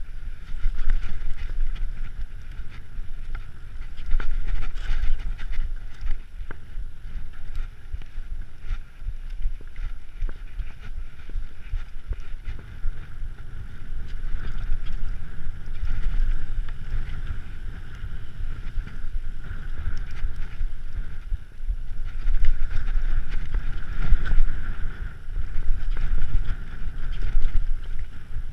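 Mountain bike rolling over a rough, stony trail: a continuous low rumble and rattle from the tyres and frame, with wind buffeting the microphone and occasional small knocks.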